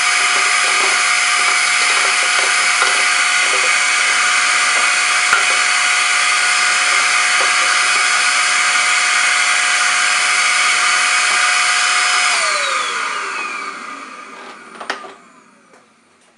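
Nutool ash vacuum cleaner's 500 W motor running steadily with a high whine as its hose nozzle sucks ash from a wood stove's grate, with light irregular clicks of debris drawn in. About twelve seconds in it is switched off, and the whine falls in pitch as the motor spins down, with a single click near the end.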